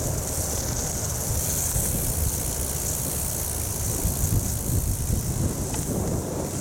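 Steady wind noise buffeting the microphone during a bicycle ride on a gravel road, a low rumble with a hiss, mixed with the tyres on the gravel.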